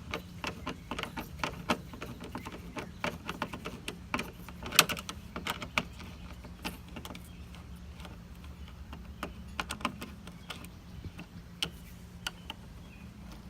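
Irregular light clicks and ticks of a screwdriver turning a screw out of car door trim, busiest in the first half with one louder click about five seconds in, over a steady low hum.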